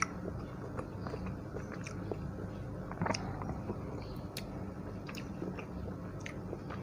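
A person chewing chewy tteokbokki rice cakes in cheese sauce close to the microphone: soft, irregular mouth clicks and smacks, the most prominent about three seconds in, over a steady low hum.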